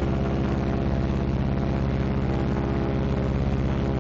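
Martin B-26 Marauder's Pratt & Whitney R-2800 radial engine and propeller running steadily during a ground run-up, a loud, even drone with a fast pulse.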